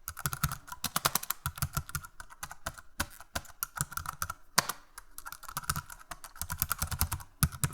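Typing on a computer keyboard: rapid runs of key clicks with short pauses between them, and one heavier keystroke a little past the middle.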